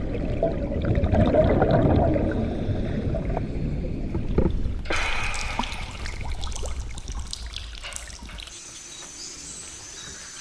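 Water trickling and dripping over a low rumble. About five seconds in it turns to brighter splashing and dripping as a scuba diver climbs a ladder out of cave water. Near the end it falls to a quieter forest background with a steady high insect buzz.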